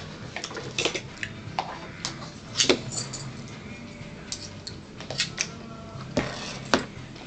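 Spoons clicking and scraping against bowls while eating, a string of small clinks with a few louder ones, over a steady low hum.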